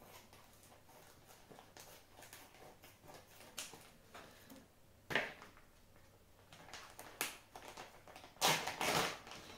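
Kitchen handling noises from food preparation. Scattered light clicks and knocks, a sharper noise about five seconds in, and a louder noisy stretch near the end.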